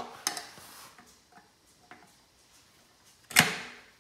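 Pliers working at a motorcycle's plastic fuel tank and hoses: sharp clicks and a short scrape at the start, a few light ticks, then one loud sharp clack about three and a half seconds in.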